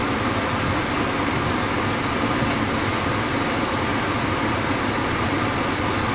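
Scania P310 fire truck's diesel engine idling steadily, heard from inside the cab.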